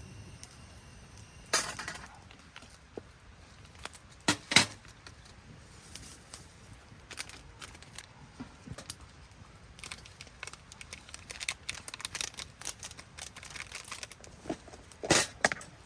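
Clinks and knocks of hard objects being handled: a sharp knock about a second and a half in, two close together about four and a half seconds in, a run of light clicks and taps, then two louder clinks near the end.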